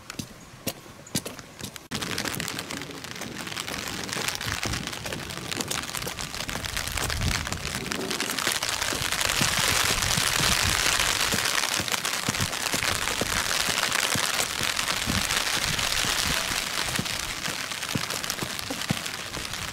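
Rain falling steadily, a dense hiss that starts suddenly about two seconds in and is loudest around the middle. A few sharp clicks come before it.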